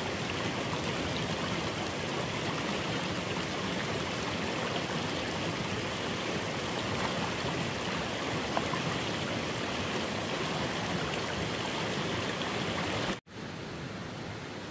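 Steady rushing water noise, like a stream flowing. It cuts out abruptly near the end and gives way to a quieter, steady hiss.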